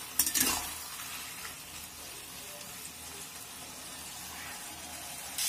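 Poi saag and pumpkin sizzling softly in a metal kadhai as the last of the cooking water is boiled off, with a few quick spatula scrapes against the pan near the start.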